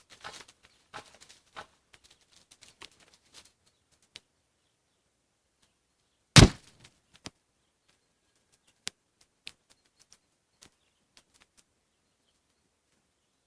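A disposable gas lighter bursting in a fire with one loud bang about six seconds in. Faint scattered crackles and pops from the fire come before and after it.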